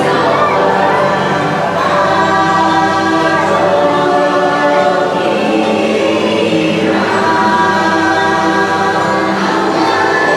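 Choral singing over music, the ride's soundtrack, in long held notes that change every few seconds.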